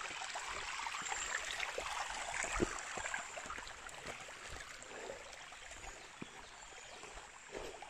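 Shallow creek water trickling over flat rock, growing fainter in the second half. A few faint knocks.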